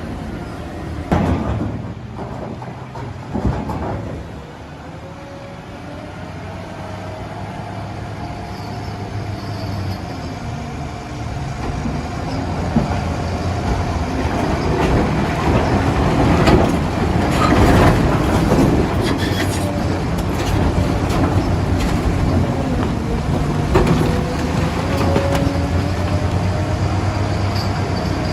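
JCB 3DX backhoe loader's diesel engine running under load, with a hydraulic whine that slowly rises and falls in pitch as the arm works. Two sharp knocks come in the first few seconds, and the sound grows louder and more clattering in the middle.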